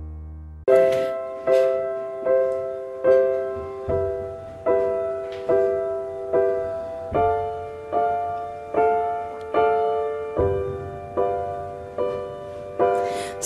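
Piano playing a slow, even run of struck chords, about one every 0.8 seconds, each left to ring and fade, the harmony shifting twice: a song's piano intro. It starts after the last tail of a held chord dies away.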